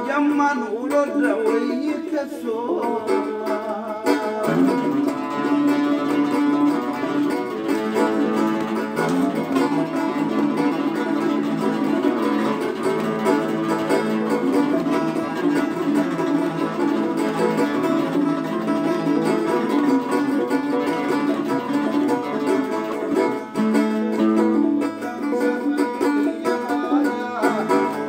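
A tanbour (Nubian lyre) and an oud playing together, plucked strings carrying a Nubian song.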